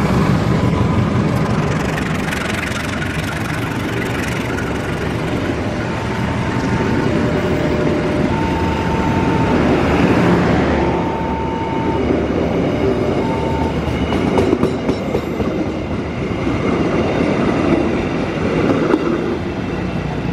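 A long passenger train rolling past close by: the diesel-electric locomotive goes by at the start, then its coaches follow with a steady loud rumble of wheels on rails. A few short, faint high tones sound about halfway through.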